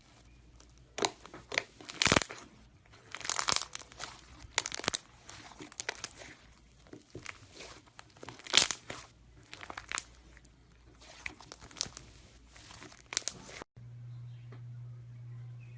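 Iceberg slime's hardened top crust crunching and crackling as it is pressed and broken, in many irregular sharp crackles. Near the end it cuts off suddenly to a steady low hum.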